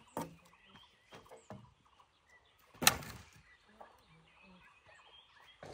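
Charred wood being handled and moved on burnt ground: a few scattered light knocks and crunches, with one sharp, loud crack about three seconds in.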